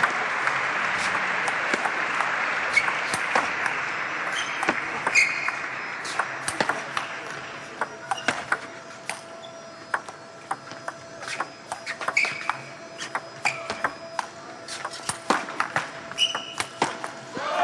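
Arena crowd applause that fades away over the first few seconds, then a table tennis ball being played: many sharp, irregular pocks of the celluloid ball on rubber bats and the table, with a few short squeaks between them.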